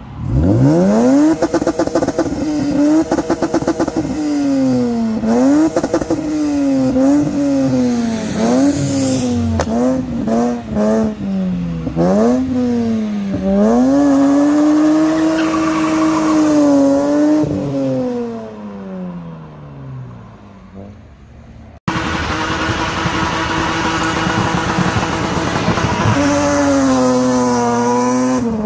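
Lexus IS200 straight-six engines revved hard while drifting, the rear tyres spinning. The engine note swoops up and down over and over as the throttle is worked, then fades away. About three quarters through it cuts to a second IS200 held at high revs in a smoky wheelspin, its revs falling near the end.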